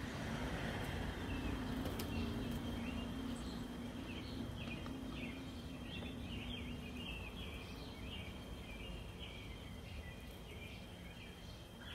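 Faint outdoor ambience: birds chirping in short repeated notes over a steady low hum that fades out about seven seconds in.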